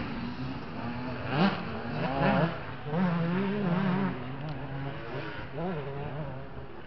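Motocross dirt bike engines buzzing and revving on the track, the pitch sweeping up and down with each throttle burst, with quick sharp revs about a second and a half and two seconds in.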